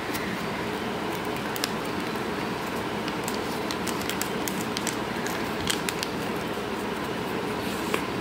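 Sheet of origami paper being folded and handled, giving scattered small crinkles and taps. Under them runs a steady, even background hum, like a fan or air conditioner.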